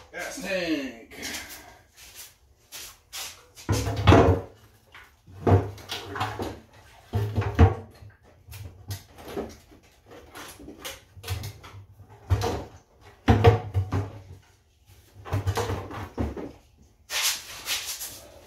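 Irregular knocks, clunks and deep thuds of an ATV gas tank and its plastic body panel being handled and pressed into place on the frame, the heaviest a few seconds apart, with a short scrape of rubbing plastic near the end.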